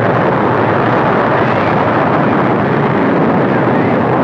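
Mercury-Atlas rocket engines at liftoff: a loud, steady rushing noise with no pitch or rhythm, thin in the deep bass as on an old film soundtrack.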